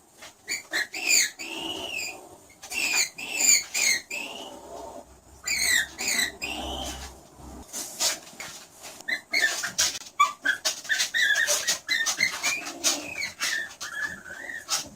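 Skunk vocalizing: runs of short, high-pitched squeaks and chirps, many arching up and then down in pitch, with sharp clicks between them.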